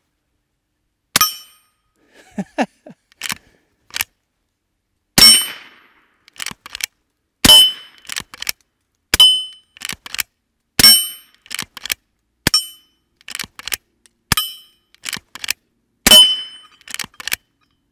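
Henry H001 .22 lever-action rifle firing about eight shots of mixed .22 ammunition, the reports differing in loudness from round to round. Most hits make the quarter-inch AR-500 steel plate ring. The lever clacks as it is worked between shots.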